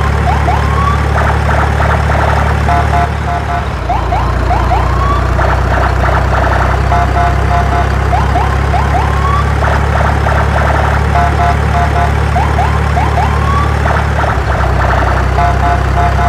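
A siren-like electronic sound repeats about every two seconds: a run of short beeps, then quick rising whoops, over a steady low hum.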